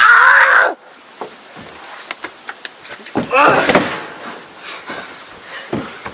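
Young men yelling during rough wrestling on a wooden deck: a loud wordless shout at the start and another about three seconds in, with scattered knocks and bumps of bodies and chairs in between.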